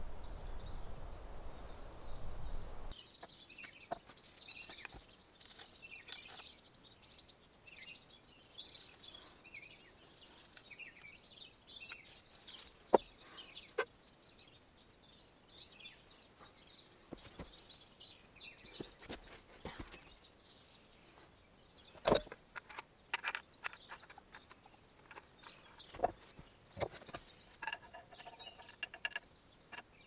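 Small birds chirping in the background, with scattered sharp clicks and knocks from hand tools being handled on a wooden workbench; the loudest knocks come about thirteen and twenty-two seconds in. A low rushing noise fills the first three seconds and cuts off suddenly.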